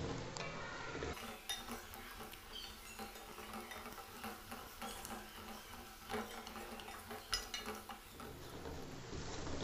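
Wooden spatula stirring and scraping potato pieces and spice paste in an aluminium pot, with scattered light knocks against the pot, over a faint sizzle as the masala fries in oil.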